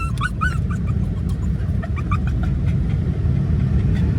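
American cocker spaniel whining in quick, high squeaky yips, excited at arriving somewhere it knows; the yips thin out after about two seconds. Underneath is the steady low rumble of the car driving, heard from inside the cabin.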